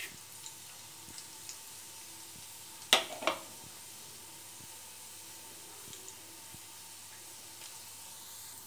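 Fennel and cumin seeds sizzling in hot oil in a kadai, a steady faint hiss with scattered small ticks and two sharper pops about three seconds in: the seeds are spluttering as a tempering.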